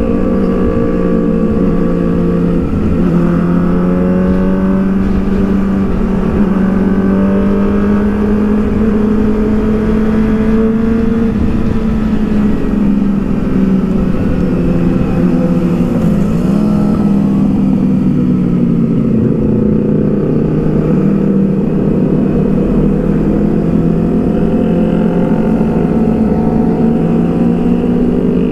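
Kawasaki ZX-6R 636 inline-four sportbike engine and exhaust cruising at steady revs, from the rider's seat. The pitch holds fairly even, with small dips as the bike eases off.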